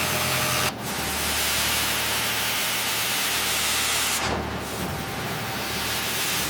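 Steady industrial machinery noise: a dense, even hiss over a low hum, changing abruptly under a second in and again around four seconds in.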